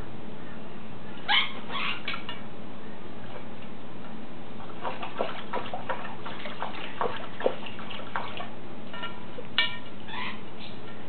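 An African grey parrot bathing in a shallow ceramic water bowl, splashing and flapping its wet wings in a rapid run of small splashes a few seconds in. Brief ringing tones sound about a second in and again near the end.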